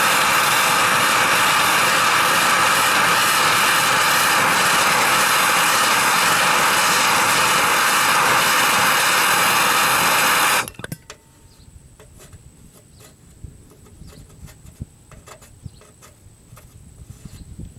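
Handheld MAP gas torch burning with a loud, steady hiss while its flame heats the aluminum hull to melt a low-temperature aluminum repair rod into the patch. The hiss cuts off suddenly about ten seconds in, leaving only faint scattered clicks.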